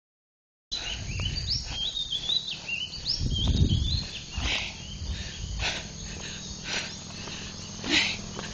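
Birds chirping in short quick rising notes for the first few seconds over a low rumble on the phone's microphone. After that comes a soft hiss about once a second.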